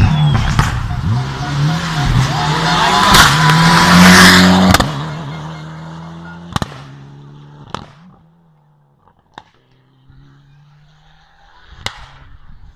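Mitsubishi Lancer Evolution X rally car passing at speed, its turbocharged four-cylinder revving up and down through gear changes. It is loudest about four seconds in, then drops sharply and fades as the car drives away. A few sharp pops follow as it goes.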